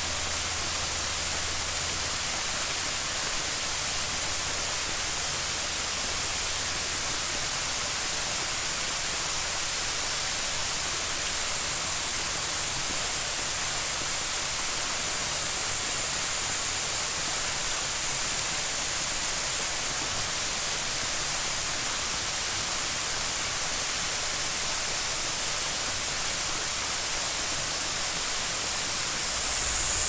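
Rushing water of a waterfall and its stream: a steady, even hiss with no breaks, strongest in the high range.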